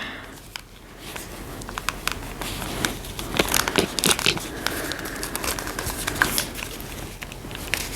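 Rustling and crinkling with many small, sharp clicks as a fashion doll is handled and undressed by hand.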